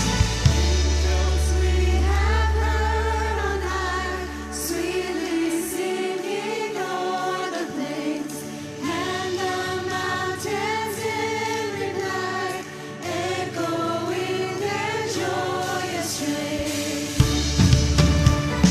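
Church worship music: singers with the band, over a held low bass note for the first five seconds; the drums drop out and come back in near the end.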